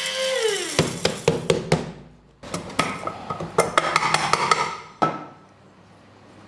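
Bullet-style mini mixer grinder's motor running with ragi (finger millet) in the jar, then winding down, its pitch falling, about half a second in. Sharp clicks and knocks follow, then a clattering, rattling stretch with many clicks that stops about five seconds in.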